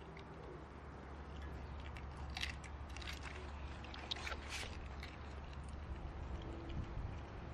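A corgi biting and chewing raw food from a hand, with a run of crunching clicks a couple of seconds in and a few more near the end, over a steady low hum.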